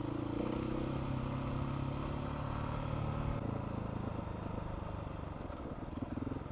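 Adventure motorcycle engine running steadily while riding a dirt track, with wind noise; it gets a little quieter about three and a half seconds in.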